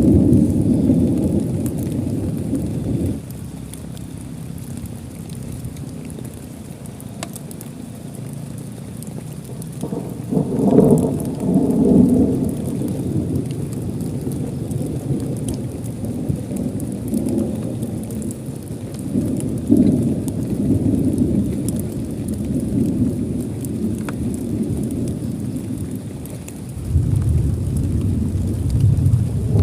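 Steady heavy rain with scattered drop ticks, and rolls of thunder rumbling over it: a loud roll at the start that fades after about three seconds, another at about ten seconds, and a strong rumble building again near the end.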